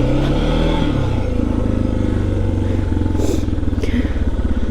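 Suzuki DR650 single-cylinder motorcycle engine running. Its revs drop about a second in, then it keeps running steadily at low revs, with a couple of brief rattles later on.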